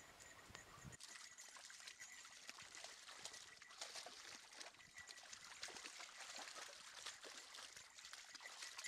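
Faint trickling of a shallow, rocky forest creek, with light splashing as dogs wade in the water.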